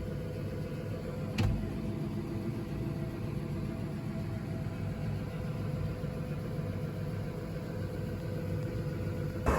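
Farm machine's engine running steadily at a low, even hum, with one sharp knock about a second and a half in.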